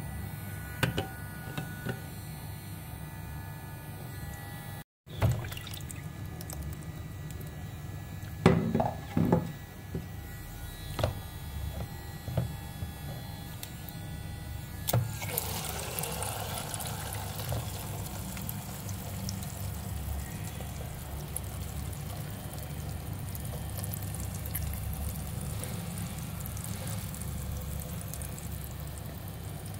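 Plastic bath fountain toy handled in a bowl of water: several sharp plastic knocks with water sloshing, then from about fifteen seconds on a steady hiss of its water jet spraying up and splashing back into the bowl.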